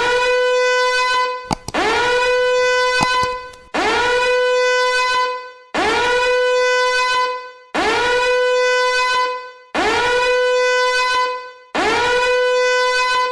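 A loud horn blast sound effect: a single held note that scoops up in pitch as it starts, played seven times in a row about every two seconds.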